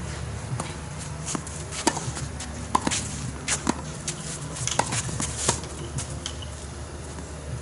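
Tennis rally: a serve, then a run of sharp, irregular racket strikes on the ball and ball bounces on the court, with shoe scuffs between them, over a steady low rumble.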